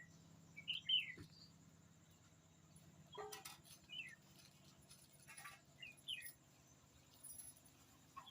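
Parrots giving short, faint chirps, a handful scattered through the stretch, with a couple of brief rustling clicks in between.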